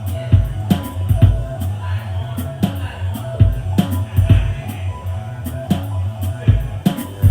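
Instrumental hip-hop beat: a heavy bass line under a kick drum and sharp, evenly spaced percussion hits.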